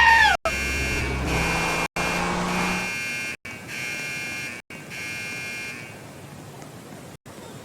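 School fire alarm sounding: a steady, high-pitched electronic tone with overtones that carries on for about six seconds and then fades out.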